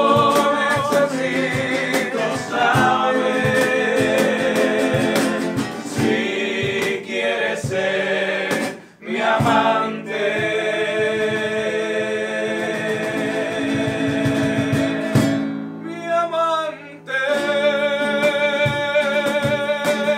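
Male vocal group singing in close harmony to a strummed nylon-string classical guitar, over a steady beat of sharp taps. The music dips briefly about halfway through and again later, then settles into a long held chord near the end.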